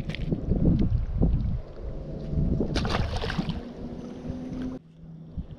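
Wind buffeting the microphone, then a short splash about three seconds in as a caught bass is dropped back into the lake.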